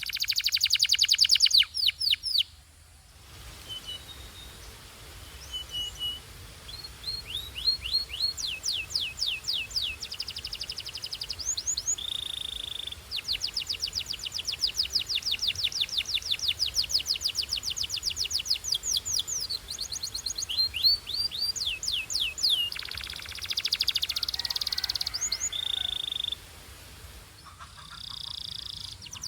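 Canary singing: long runs of rapid, evenly repeated chirps strung into trills that change pattern every few seconds, with short pauses between phrases.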